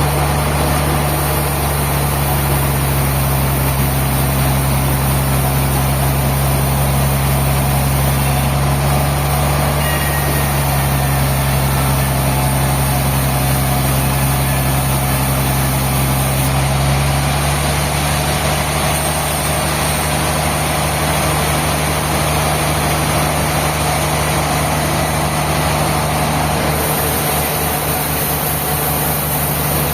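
Sawmill machinery running steadily, a constant low engine hum.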